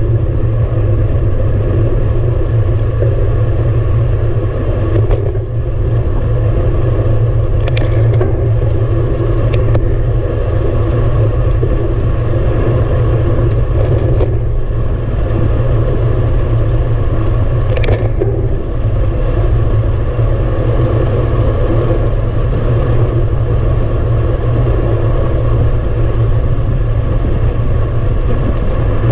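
Steady wind rumble buffeting the microphone of a handlebar-mounted camera on a moving road bike, with several sharp clicks scattered through.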